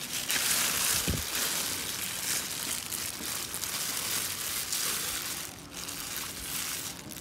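Thin plastic bag crinkling and rustling in bursts as hands pull it away from a bowl of raw chicken wings.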